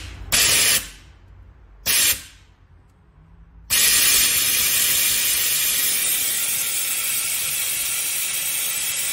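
Compressed air blowing out of a screw compressor's electronic condensate drain valve as it is test-triggered: two short hissing blasts in the first two seconds, then a steady loud hiss from about four seconds in.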